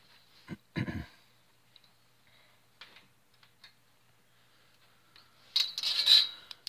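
Hands handling a stainless-steel belt-bonding jig and its clamps: a short knock about a second in, a few light clicks, then a longer scraping clatter near the end.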